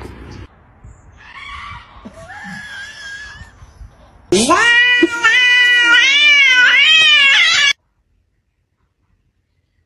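Brown hen giving a loud, long, wavering scream that sounds like a woman screaming, for about three seconds, then cutting off abruptly. Before it there are only faint, scattered sounds.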